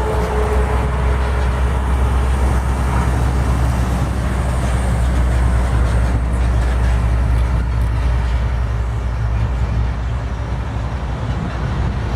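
Heavy truck traffic on a highway: a steady low engine rumble under continuous tyre and road noise.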